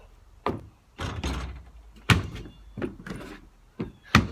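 A basketball bouncing on hard ground: several sharp thuds at uneven intervals, with a brief scuffing rush about a second in.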